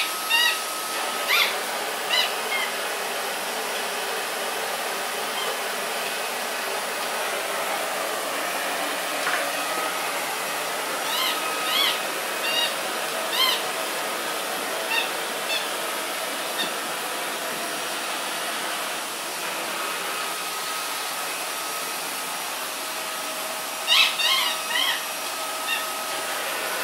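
Vacuum cleaner running steadily, with a dog's squeaky toy squeaking over it in several short runs of high squeaks a few seconds apart.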